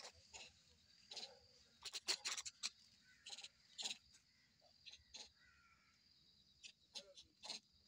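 Quiet outdoor woodland ambience: scattered short crackles and rustles over a faint, steady, high-pitched insect drone, with a faint brief animal call about halfway through.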